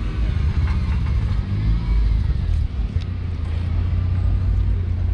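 Mazda RX-7 (FD) rotary engine running as the car rolls slowly past, a low rumble that shifts in pitch at first and then settles into a steady low drone about three seconds in.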